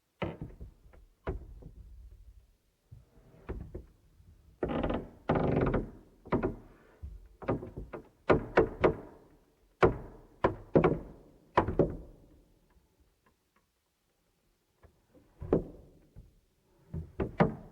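Wooden floorboards creaking and knocking under weight, a series of irregular short creaks and clicks with a few longer groaning creaks, and a pause of a couple of seconds before a last cluster.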